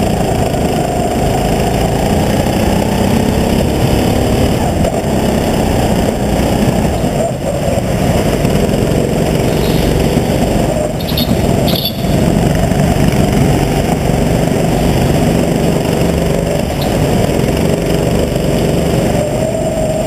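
Racing kart's engine heard on board, running hard, its pitch rising and falling as the kart accelerates and lifts through the corners of an indoor track.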